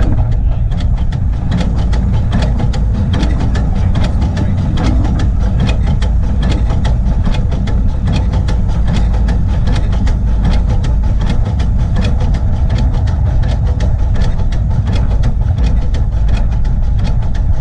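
Coal-fired Crown 4-4-0 24-inch-gauge steam locomotive running along the track: a heavy, steady low rumble with a quick, even beat of short clicks.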